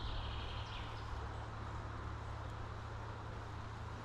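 Steady low rumble of wind and handling noise on a body-worn action camera's microphone, over a faint even hiss. A thin high tone sounds briefly and cuts off under a second in.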